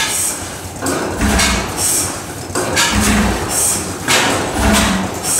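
Antique stationary gas engine with two heavy flywheels running, with a heavy beat and a burst of clatter repeating about every one and a half seconds.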